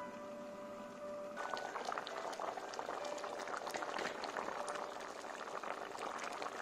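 Thick tomato sauce with chunks of squash, potato and green pepper bubbling in a pot on the stove. A dense popping and crackling of bursting bubbles starts about a second and a half in. The stew is at a steady boil and almost done.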